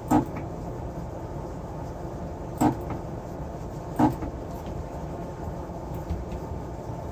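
Three sharp knocks, the first right at the start and the others about two and a half and four seconds in, over a steady low hum.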